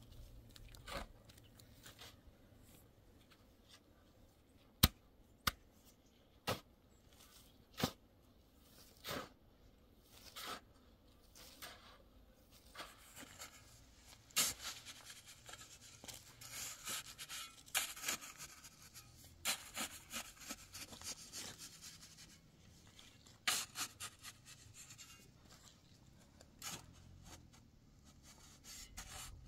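Metal shovel blade digging into and scraping through a pile of sand and gravel: irregular gritty scrapes and sharp strikes, a second or so apart at first, coming thicker and with more continuous scraping from about halfway on.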